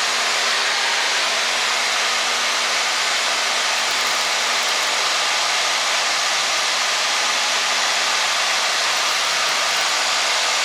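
A single-engine Cessna's engine and propeller running steadily in flight, heard inside the cabin as an even, loud hiss with a faint steady hum.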